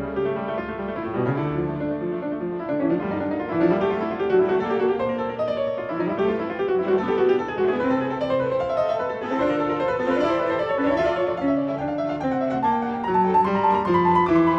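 Piano playing classical music, a continuous stream of quick notes.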